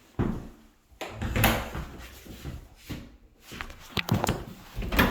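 Irregular wooden knocks and clatter from hardwood flooring boards being handled and fitted, a few sharp hits spread over the seconds with the loudest about a second and a half in.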